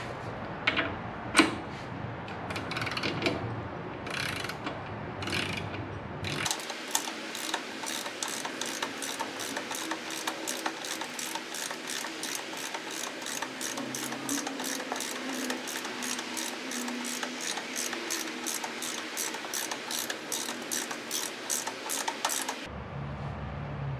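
Socket ratchet wrench clicking as a motorcycle shock's mounting bolt is tightened: a few scattered clicks and tool clatter at first, then a steady run of ratchet clicks at about three a second that stops shortly before the end.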